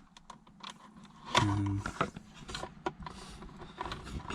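Light plastic clicks and rattles of car radio wiring connectors and cables being handled behind the dashboard, with a short hummed voice sound about a second and a half in.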